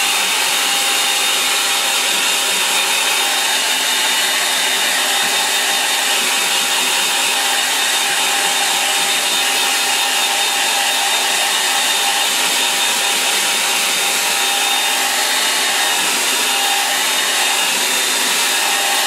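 Handheld hair dryer running steadily, blowing on wet watercolour paper: an even rush of air with a steady motor whine through it.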